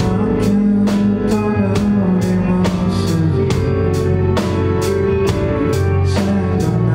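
Rock band playing live: a drum kit keeps a steady beat, hitting about twice a second, over bass and guitar.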